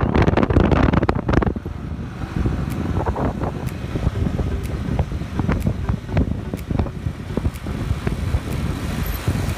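Wind buffeting the microphone of a camera on a moving motorcycle, over a steady low road rumble. The buffeting is heaviest for about the first second and a half, then settles into a lower rumble with short gusts.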